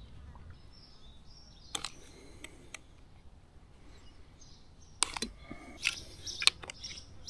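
Scattered sharp clicks and light knocks of a metal rod and hand tools against a car battery's freshly cast lead terminal post, sparse at first and bunched together in the second half. Birds chirp faintly.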